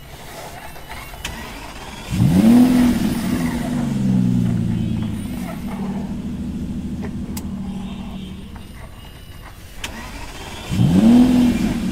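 A toy vehicle's electronic engine sound effect. About two seconds in, a quick rising rev settles into a steady engine hum that fades out after several seconds, and near the end the same start-up rev begins again.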